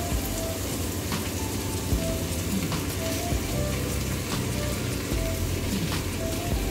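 Background music with short repeated melody notes, a low bass line and a light beat, over a steady hiss.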